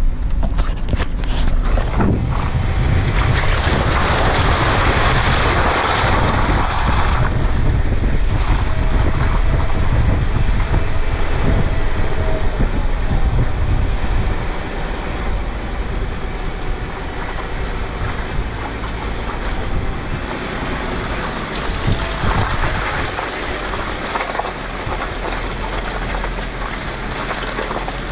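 Jeep Rubicon driving slowly along a muddy dirt track, tyres working through mud and puddles, with heavy wind noise rumbling on the microphone. It is loudest in the first half and eases off about halfway.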